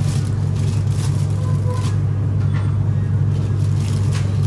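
Steady low machine hum, with scattered light clicks and rustles.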